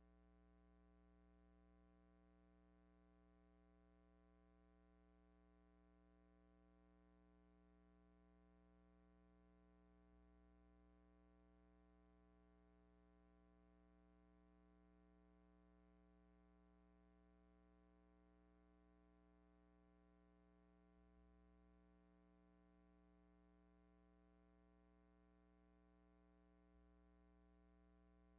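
Near silence: only a faint, steady hum with no other sound.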